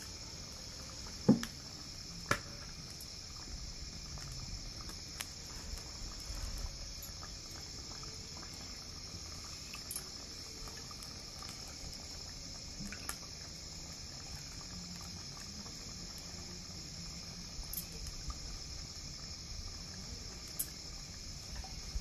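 Batter frying in hot oil in a clay pot, a steady sizzle with scattered small pops and clicks. Two louder sharp clicks come about a second and two seconds in.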